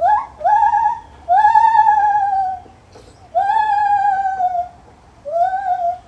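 Lar gibbon calling: a run of clear hooting notes, each sliding quickly up in pitch and then slowly down. The two in the middle are long, over a second each, and shorter notes come at the start and near the end.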